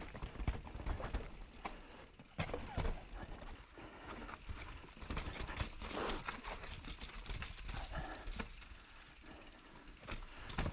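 Mountain bike rolling fast down a rocky, rooty trail: the bike rattles and clicks with many irregular knocks as the tyres run over stones and roots, with a louder stretch of tyre and ground noise about six seconds in.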